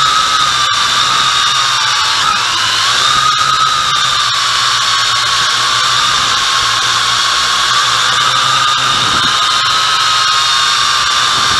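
MJX X101 quadcopter's motors and propellers whining steadily, heard up close from a camera mounted on the drone. The pitch wavers with the throttle and dips briefly about two seconds in.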